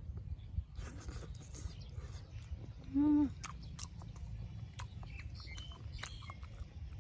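A man chewing a mouthful of boiled fertilized duck egg (balut), with wet lip smacks and mouth clicks, and a short hummed "mm" about three seconds in.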